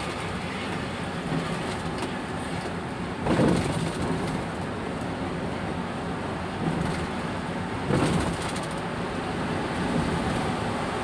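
Road noise heard from inside a moving car at highway speed: a steady rumble of tyres and engine, with two brief louder swells about three and eight seconds in.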